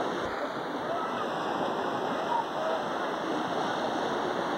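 Steady rush of small waves washing onto a sandy beach, with water sloshing around people wading in the shallows and faint voices.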